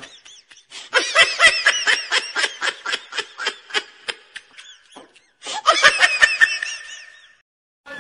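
Rapid, rhythmic high-pitched laughter, about four to five laughs a second, in two runs with a short silent break between them, starting again about five and a half seconds in.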